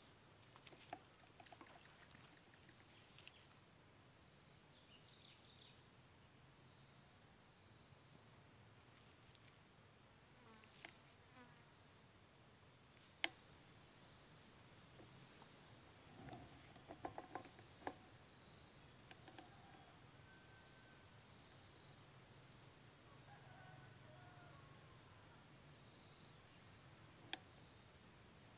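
Faint, steady high-pitched chorus of insects, with a few short sharp clicks, the loudest about halfway through and another near the end.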